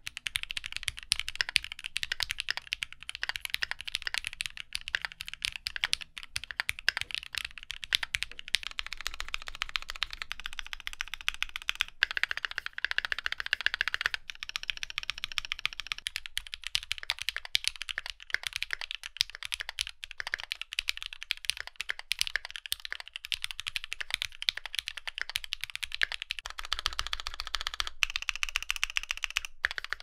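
Continuous typing on a Keychron Q2 aluminium-case 65% mechanical keyboard with lubed and filmed Gateron Ink Black v2 linear switches, PBT keycaps and relubed spacebar stabilizers: rapid keystrokes with a clacky sound. About halfway through, the same board is heard with its EVA plate foam taken out.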